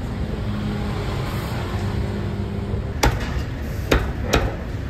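A Chinese cleaver chopping roast meat on a wooden chopping block: three sharp chops in the second half, over steady background noise.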